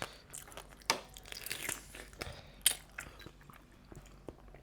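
Crab shell being cracked and crunched open to get at the meat: two sharp cracks, about a second in and again near three seconds, with a run of crackling between them.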